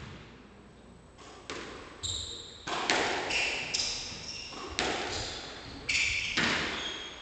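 A squash rally: the ball cracks sharply off rackets and the court walls, about ten hits at uneven intervals, each ringing briefly in the enclosed court. Short high squeaks of court shoes on the wooden floor come between the hits.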